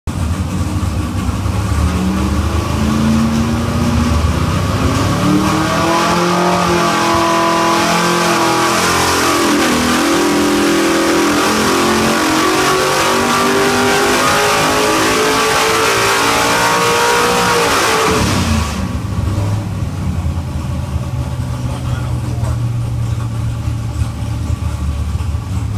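Naturally aspirated 572 cubic-inch Chevrolet big-block V8 on an engine dyno making a full-throttle power pull on pump gas, its pitch rising steadily as the revs climb. About 18 seconds in the throttle closes, the revs fall away sharply and the engine settles to a steady idle.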